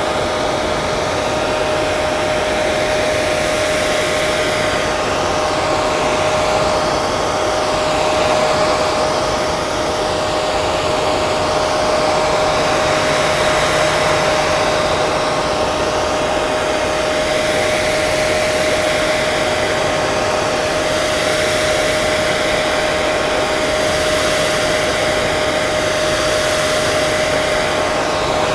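Hair dryer running continuously: a steady rush of blown air with a constant motor whine, shifting slowly in tone.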